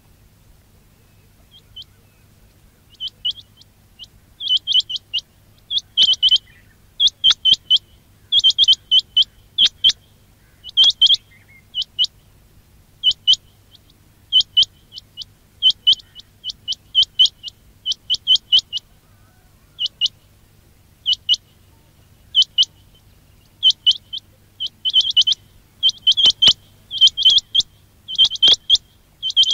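Quail calling: short, sharp, high-pitched notes in quick clusters of two to four, repeated about once a second. They begin faint and grow louder over the first several seconds.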